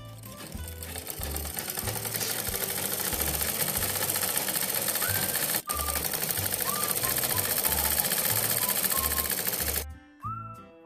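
Domestic sewing machine stitching fabric: a rapid, even needle clatter that builds up over the first couple of seconds, breaks off briefly about halfway through, and stops just before the end.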